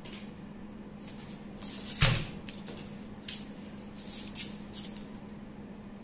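Paper pattern pieces being handled and slid about on a paper-covered table: a series of short rustles and scrapes, with one sharper knock about two seconds in. A steady low hum runs underneath.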